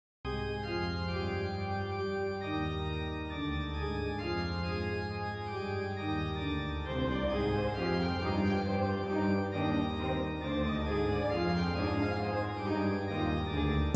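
Organ music playing slow, held chords, starting just after a brief gap.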